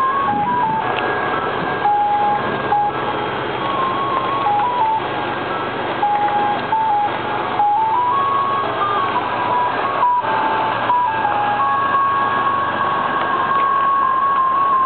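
Ice cream truck's electronic music box playing a simple chime tune, one plain beeping note at a time stepping up and down, over steady background noise.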